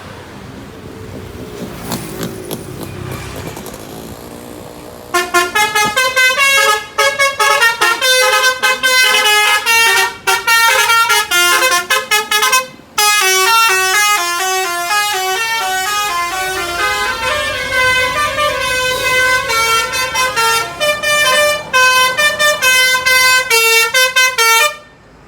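Bus telolet horn (Basuri musical horn set) playing a loud melody of quickly stepping notes, starting about five seconds in and running for about twenty seconds with one short break midway. Before it, only vehicle noise.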